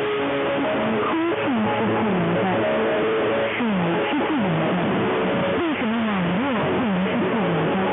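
Shortwave radio reception: music with held notes buried in heavy static hiss, with warbling tones sweeping up and down through it.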